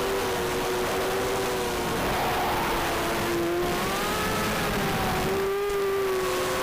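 Brushless motors and propellers of an Eachine Falcon 180 racing quadcopter whining in flight. Several steady tones waver up and down with the throttle, dipping briefly after about three seconds and then rising.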